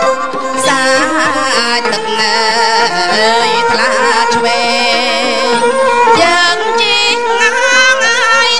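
A woman singing a Khmer song into a microphone, holding long notes with strong vibrato, over a live traditional ensemble. The voice comes in about half a second in.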